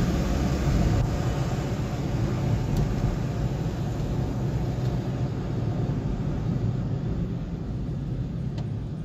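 Car cabin noise while driving: a steady low rumble of engine and road, easing off a little toward the end.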